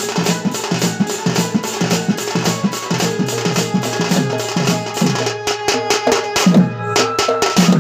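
Dhol, a double-headed barrel drum beaten with a stick, playing a fast even folk rhythm of about five strokes a second. Heavier low strokes come in during the second half, and a steady high tone joins near the end.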